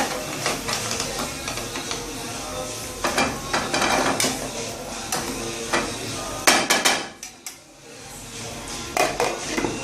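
Metal cooking utensils knocking and clattering against pots and pans in irregular strikes, with a brief lull about seven and a half seconds in.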